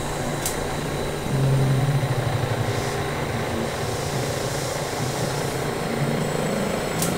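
Low droning electronic noise soundtrack over a steady hiss, like a rumbling engine; a pulsing low tone swells about a second and a half in, and there are a couple of sharp clicks.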